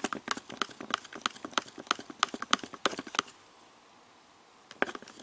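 A stir stick knocking against the sides of a mixing cup as tint is stirred into clear coat, making rapid clicks about five a second. The clicking stops about three seconds in and starts again near the end.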